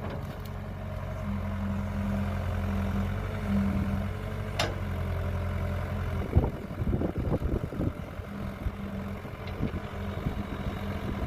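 Kobelco excavator's diesel engine running steadily under load as it works a full bucket of soil, its hum swelling a little early on. A sharp knock comes about four and a half seconds in, followed by a couple of seconds of irregular clattering knocks.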